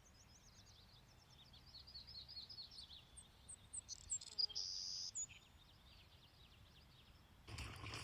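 Birds singing faintly: quick series of high chirps and trills, with a brief held high note about halfway through. A louder rush of noise comes in near the end.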